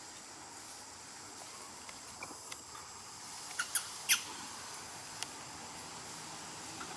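Forest ambience: a steady high insect drone, with three short, sharp high squeaks about halfway through and a fainter one a second later.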